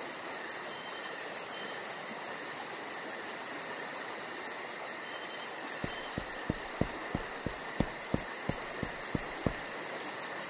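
Night-forest ambience: a steady hiss with a high, fast-pulsing insect chirr. About halfway through, a run of about a dozen dull low thumps comes evenly, about three a second, for some four seconds.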